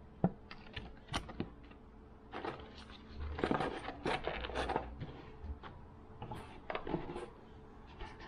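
Hands handling small items and packaging on a hard countertop: irregular clicks, taps and rustles, busiest from about three to five seconds in.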